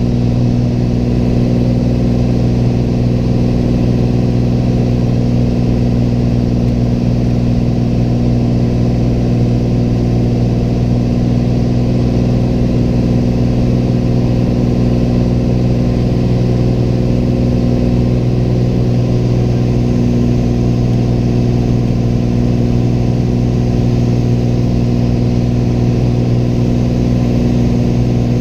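Piston engine and propeller of a single-engine Piper light aircraft droning steadily in flight, heard inside the cockpit as a loud, even hum that holds one pitch throughout.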